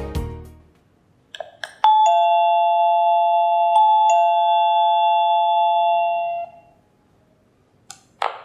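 Electronic doorbell chime: a higher "ding" followed a quarter second later by a lower "dong", both held at an even level for about four seconds and then cut off. A few short clicks come just before the chime and again near the end.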